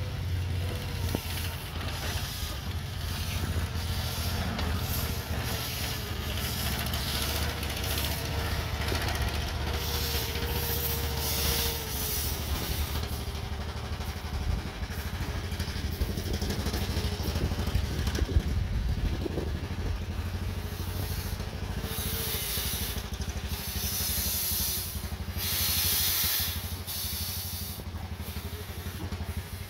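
1925 Vulcan narrow-gauge steam locomotive moving slowly, with repeated bursts of steam hiss over a steady low rumble; the loudest hiss comes a little before the end.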